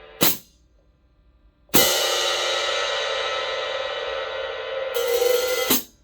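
14-inch Zildjian K Sweet hi-hat cymbals: a short sharp chick, then about a second and a half later a stick stroke on the open hats that rings and shimmers for about four seconds. It brightens near the end, then is choked off abruptly.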